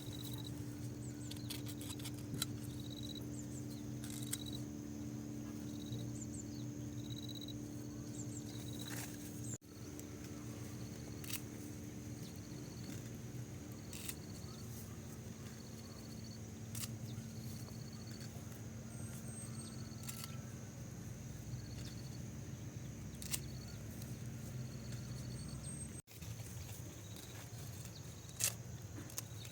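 Rural outdoor ambience: a steady low hum and a steady high whine, with a short high chirp repeating about once a second and scattered sharp clicks.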